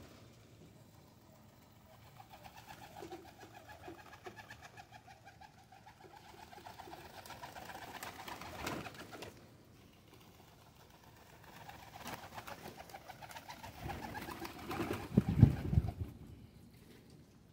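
A flock of Pakistani high flyer pigeons cooing while they feed, in two long stretches of pulsing calls. A loud low thump comes near the end.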